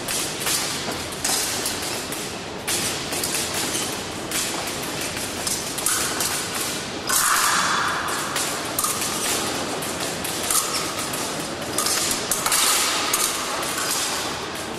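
Épée blades clicking and clashing and fencers' feet stamping on the piste during a bout, in a large echoing hall. A buzzing tone comes in about seven seconds in and sounds again more faintly near the end.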